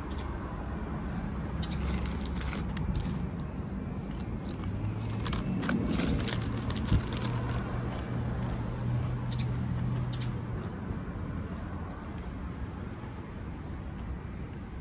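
Steady low rumble of vehicle traffic, with a low hum held through the middle stretch. Scattered crinkly clicks and rustles come over it, with one sharp click about seven seconds in.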